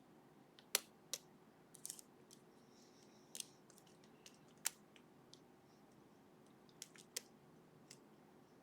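Lock pick working the pins inside a Ruko lock cylinder: sharp, irregular metallic clicks and taps, about eight in all, the loudest about three-quarters of a second in.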